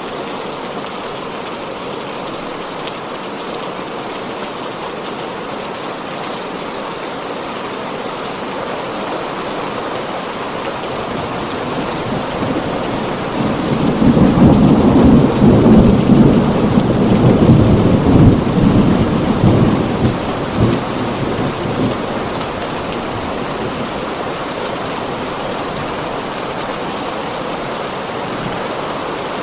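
Heavy rain falling steadily, with a long roll of thunder that builds about ten seconds in, rumbles loudly for several seconds and fades away.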